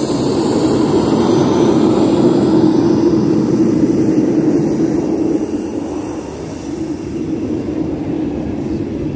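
Homemade small jet turbine on an ice sled running: a steady loud rush with a thin high whine above it, growing quieter from about halfway through as the sled moves away.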